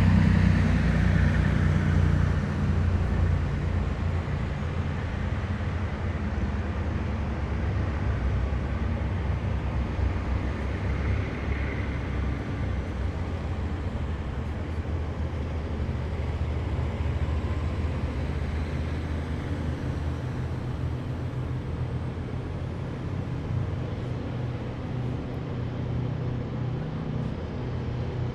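Heavy military vehicles driving past in a column, a deep engine rumble, loudest at the start and gradually fading as they move away. A brief high whine rises and falls about midway.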